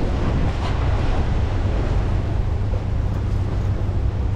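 Wind buffeting the microphone, a steady low rumble, over choppy water slapping around the boat and pier pilings.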